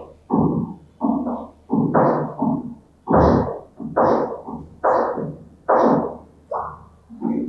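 A man's voice reading a passage aloud in short, evenly spaced phrases.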